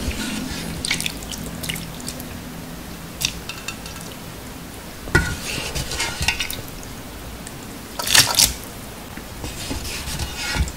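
Wooden chopsticks clinking and scraping in a thin yellow aluminium pot as ramen noodles are lifted out, with broth dripping and splashing. A louder burst of noise comes about eight seconds in.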